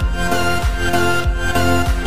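Electronic background music with a steady beat and a lead melody that glides between notes.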